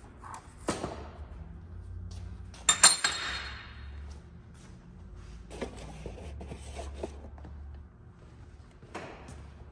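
Flat steel pieces being set down and shifted on a steel workbench: a few sharp metal clinks, the loudest about three seconds in with a short ring, then quieter handling clatter.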